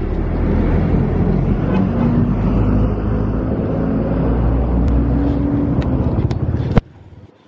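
Wind buffeting the camera's microphone: a loud, low rumbling roar that cuts off suddenly near the end.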